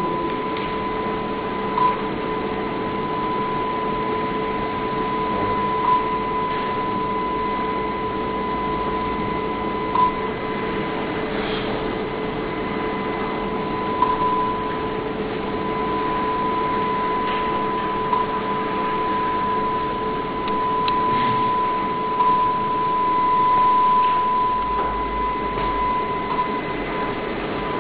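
A loudspeaker sounding one steady, unbroken tone, the target sound that a cricket-like robot homes in on, over a lower steady hum and even hiss. A brief click comes about every four seconds.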